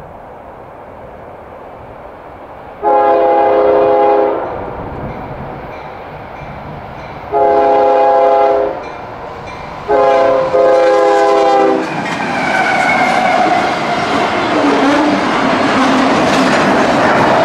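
Diesel locomotive's multi-chime air horn sounding the grade-crossing signal: two long blasts, a short one and a long one. The train then comes up and rolls past with a loud, building rumble of wheels and cars.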